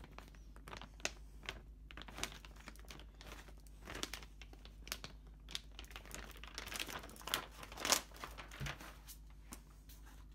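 Plastic packaging, a glossy foil-like pouch and a bubble mailer, crinkling as it is handled, in irregular crackles that grow thicker and loudest about eight seconds in.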